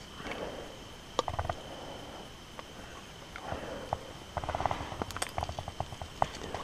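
Footsteps and shuffling on river cobbles with scattered sharp clicks, turning into a quick run of clicks and rattles from about four seconds in.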